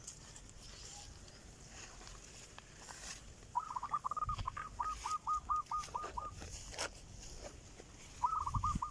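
A bird calling: a quick run of about a dozen short, clipped notes, roughly four a second, then a shorter run of three or four notes near the end.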